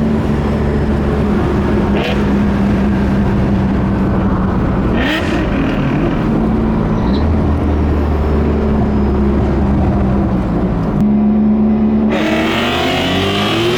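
Turbocharged three-rotor 20B rotary engine running under way, its pitch rising as it revs up about five seconds in and again near the end.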